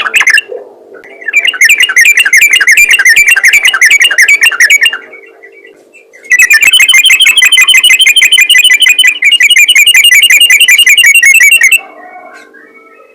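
Yellow-vented bulbul (trucukan) singing a loud, rapid trill of repeated high notes in two long runs, the second starting about six seconds in and lasting over five seconds.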